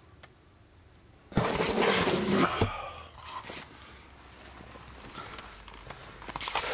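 Close rustling and bumping of clothing and bedding as the camera is handled, starting after about a second of quiet and ending in a sharp knock, then lighter scuffs and clicks.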